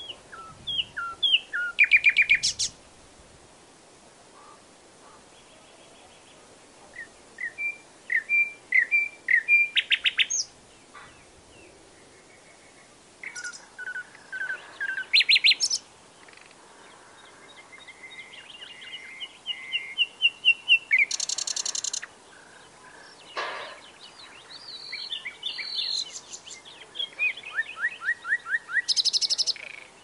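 Nightingale singing: a string of separate, varied phrases with short pauses between them, each mixing clear whistled notes with fast repeated rattling trills.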